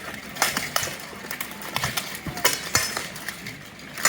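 Blunted steel weapons striking each other and steel armour in a full-contact duel: a series of sharp, irregular metallic clanks.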